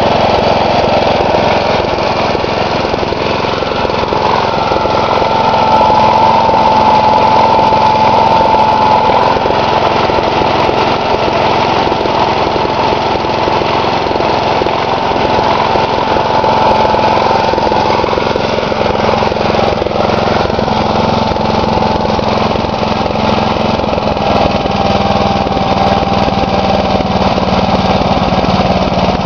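A 16 hp Briggs & Stratton single-cylinder Synchro-Balanced engine running steadily and evenly, a sign of a good-running engine.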